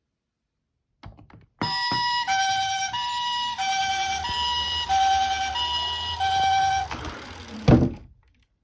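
Japanese-style two-tone ambulance siren, a higher and a lower note alternating about every two-thirds of a second, preceded by a few faint clicks. After the siren stops, a single loud thump sounds near the end.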